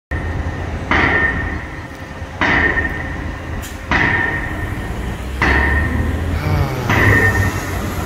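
Pile driver hammering steel piles: five heavy blows about one and a half seconds apart, each ringing with a metallic clang, over a steady low rumble.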